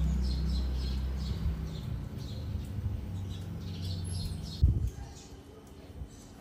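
Birds chirping in short repeated calls over a low steady hum that drops away about five seconds in, with a single sharp thump shortly before.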